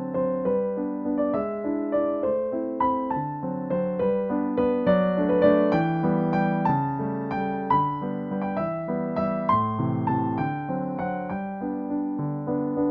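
Background piano music: a gentle, steady melody of plucked-sounding keyboard notes over a soft bass line.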